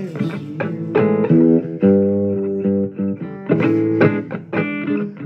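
Blues music: a guitar playing held and bending lead notes over a bass line.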